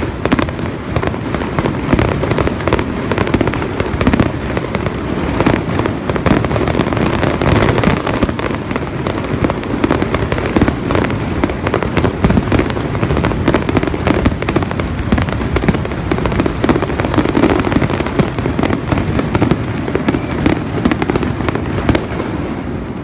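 Fireworks display with a dense, unbroken barrage of bangs and crackles, many shells going off every second over a continuous rumble.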